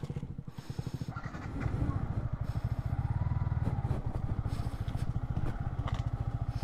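Yamaha MT15's single-cylinder engine running at low revs with an even, fast chug, getting somewhat louder about two seconds in.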